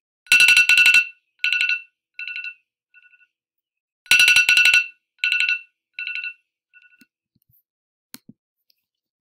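Sound-effect recording of an electric school bell ringing, the kind that signals class is about to begin. It rings twice, about four seconds apart. Each ring is a loud, rapid-fire clatter of strikes, followed by shorter, fainter repeats that die away.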